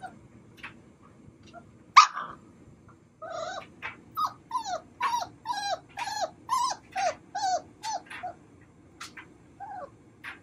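Labrador retriever puppies crying: one sharp yelp about two seconds in, then a fast run of short yips, each dropping in pitch, for about five seconds before they die away.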